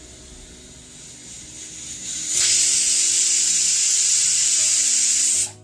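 Aluminium stovetop pressure cooker whistling: steam hisses out under the weight valve, building over about a second, holding loud and steady for about three seconds, then cutting off sharply near the end. It is the third whistle, the count that marks the cooking done.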